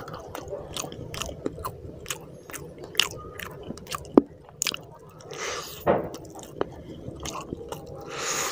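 Close-miked chewing of a hand-fed mouthful of rice, curry and fried fish, with many sharp wet mouth clicks and smacks and a couple of longer squishy, noisy stretches.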